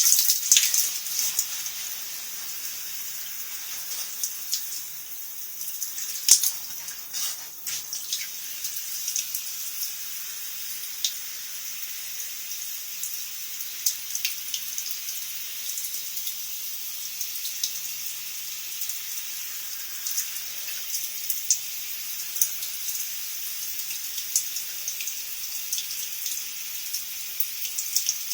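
Shower water spraying with a steady hiss, with scattered drips and splashes and a sharp knock about six seconds in.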